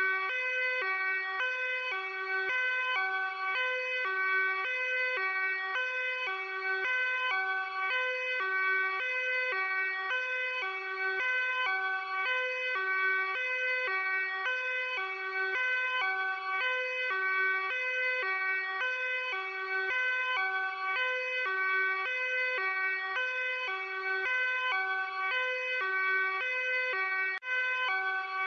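Luxembourg police car's hi-lo two-tone siren, alternating evenly between a high and a low note at about one high-low cycle a second, with a steady higher tone running under it.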